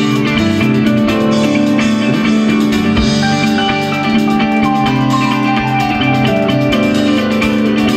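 Live rock band playing an instrumental break between sung verses: electric guitar over a drum kit, with sustained held notes.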